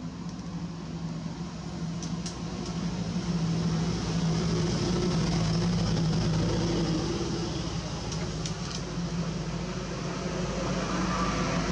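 A vehicle engine running with a steady low hum, growing louder a few seconds in and easing slightly near the end.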